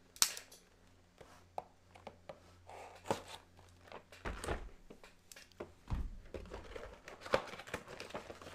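A cardboard product box and its plastic insert being handled and opened: irregular light knocks, taps and scrapes, with a few sharper knocks spread through.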